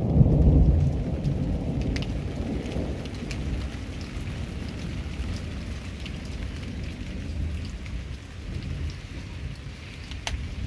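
Steady rain falling, with a low rumble that is loudest in the first second or so and scattered drops ticking.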